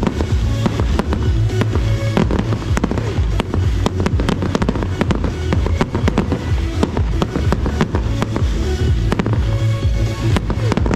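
Fireworks going off in quick succession, many sharp bangs and crackles, over loud music with a steady bass beat.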